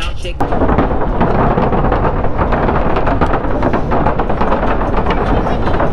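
Heavy wind noise buffeting the microphone while riding an electric bike, with a low rumble and irregular crackle. It cuts in abruptly about half a second in.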